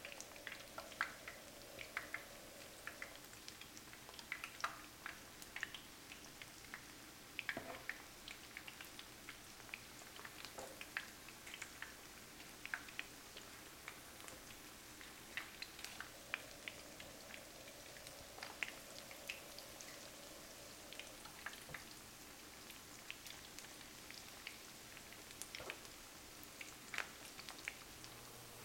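Battered chicken nuggets frying in vegetable oil in a frying pan: faint, irregular crackles and pops of the hot oil.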